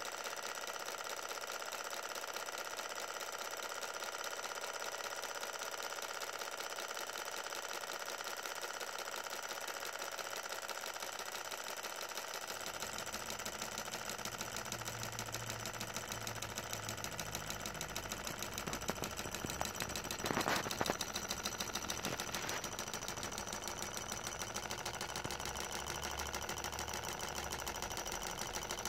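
Two Solar 1 model Stirling hot-air engines running on their burners, a fast, steady mechanical clatter from their pistons, linkages and flywheels. A brief louder clatter comes about twenty seconds in.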